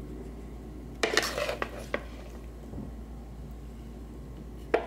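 Kitchen utensils and dishes clattering: a short burst of knocks and scraping about a second in, and a single sharp knock near the end.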